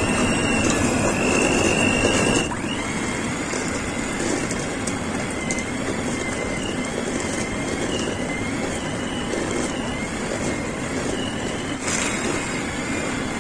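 Electric hand mixer running, its motor whining steadily as the wire beaters cream butter in a stainless steel bowl. About two and a half seconds in the whine drops to a lower pitch and then wavers slightly as the beaters work through the butter.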